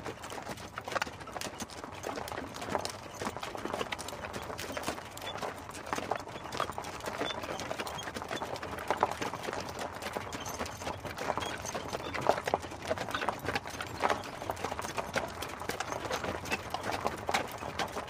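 Hooves of a two-horse team clip-clopping in a continuous, irregular patter as they pull an open carriage.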